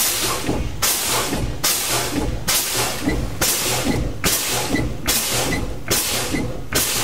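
Truck air brakes hissing in about nine evenly spaced bursts, a little under a second apart, as the foot brake is fanned. Each release vents air, bleeding the air tanks down to test the low air warning.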